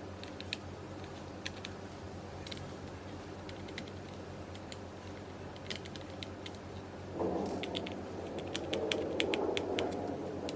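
Light plastic clicks of a small laptop being handled during disassembly, scattered at first, then from about seven seconds in a quicker run of clicks over a louder rasping scrape of parts being worked loose.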